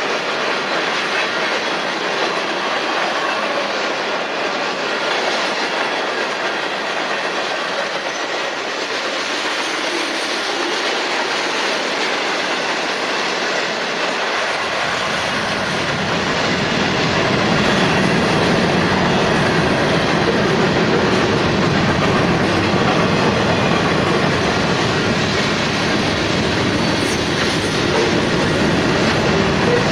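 Freight cars of a passing train rolling through a grade crossing: steady wheel-on-rail noise. About halfway through, a deeper rumble joins in and the sound grows a little louder.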